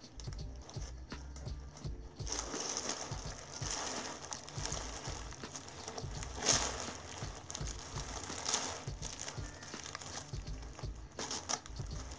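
Cellophane wrapping of a candy lei crinkling and rustling as hands tie and tighten a knot in its string. It is quieter for the first two seconds, with louder rustles about six and a half and eight and a half seconds in.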